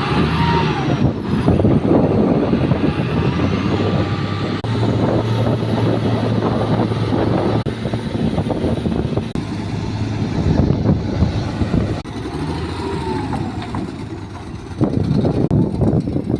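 Excavator's heavy diesel engine running under load, with rumbling and clattering as the machine works. The sound changes abruptly several times where clips are cut together.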